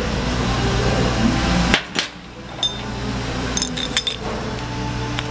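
Metal tool knocking and clinking against the gate valve's stem and packing area as the stem seal packing is pushed down into place: one sharp strike about a second and a half in, then a few lighter clinks, over a steady low hum.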